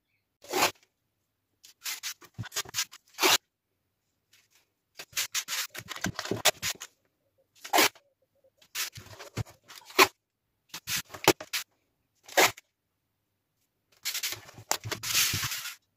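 Blue painter's masking tape pulled off the roll and torn into strips, with hands pressing it flat, heard as a series of short rips with silent gaps between them.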